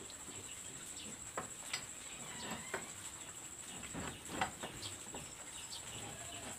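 Scattered light clicks and knocks of metal and rubber parts being handled and fitted onto a soybean grinder's shaft by hand during reassembly after a bearing change, over a steady high-pitched whine.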